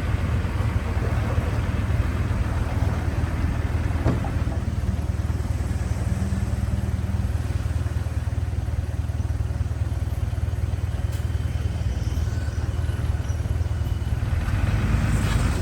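Diesel engine of heavy earthmoving equipment running steadily, a low, even engine note with no change in pace.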